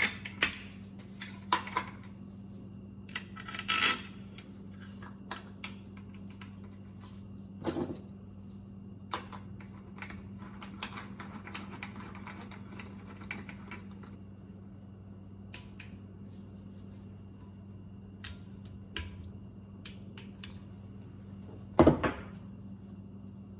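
Metal generator parts and hand tools clinking and knocking at irregular intervals during reassembly, with a few louder clanks near the start, a third of the way in and near the end, over a steady low hum.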